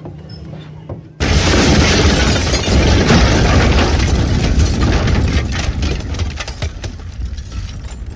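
Intro sound effect of an explosion: a sudden boom about a second in, followed by a long loud rumble and crackle of crumbling, shattering rock debris that eases off slightly near the end.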